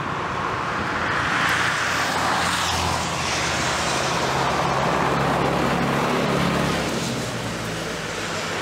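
A motor vehicle going past close by: a steady low engine hum under road noise that swells over the first few seconds and then eases.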